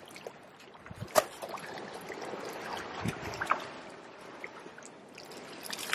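Liquid trickling and dribbling, with small wet handling noises and a sharp click about a second in.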